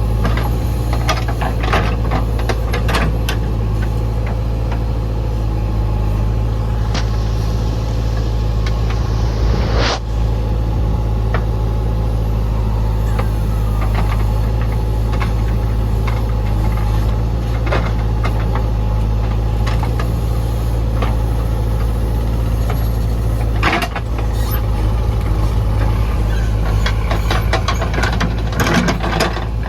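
Heavy diesel engine of a JCB 3DX backhoe loader running steadily while it works, with scattered knocks and clanks.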